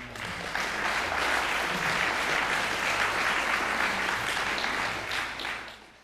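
Concert audience applauding, breaking out suddenly and dying away near the end.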